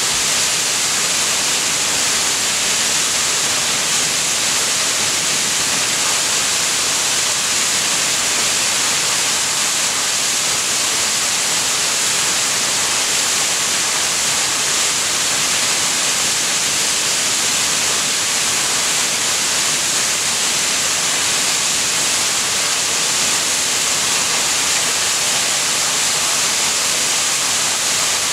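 Waterfall cascading over boulders: a steady, unbroken rush of water, loudest in its high hiss.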